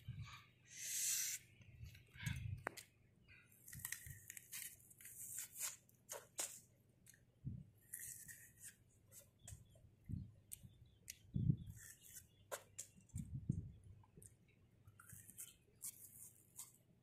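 Biting into and chewing a crisp, peeled raw fruit close to the mouth: irregular crunches and wet chewing sounds, with the fibrous peel tearing at times.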